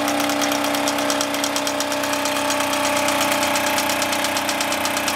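Wilesco D20 toy steam engine running steadily, its exhaust giving a fast, even beat of short chuffs, with the steady hum of the belt-driven EKT model workshop machines it powers, such as a small drill press.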